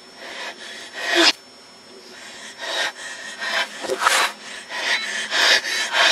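Irregular rasping, hissing noises in short bursts of differing length, in audio played backwards.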